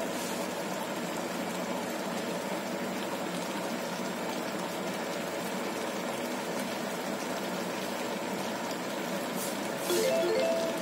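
Fish head soup boiling hard in a wok: a steady bubbling. About ten seconds in, a short chime of a few rising notes sounds over it.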